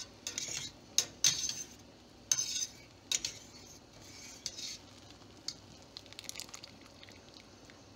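Wire spider skimmer clinking and scraping against the side of a stainless steel pot as boiled taralli are scooped out of the water. Several sharp clinks come in the first three seconds, then softer, scattered ones.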